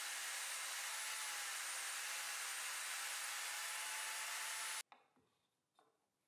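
Table saw with a dado stack running and cutting a groove in an MDF panel: a steady noise with a faint wavering whine, which cuts off suddenly about five seconds in. A couple of faint taps follow as the miter channel is fitted into the groove.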